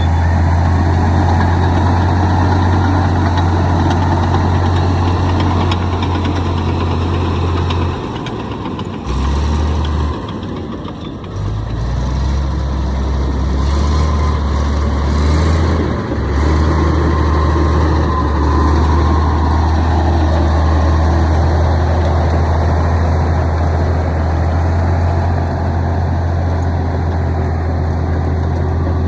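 Komatsu D65E bulldozer's diesel engine running steadily with a deep, even drone; the engine sound drops briefly twice, about eight and ten seconds in, then comes back and holds steady.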